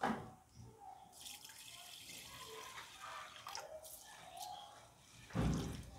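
Red lentils being washed by hand in a bowl of water: quiet sloshing and dripping as the fingers rub the grains. There is a sharp sound at the very start and a louder sound about five and a half seconds in.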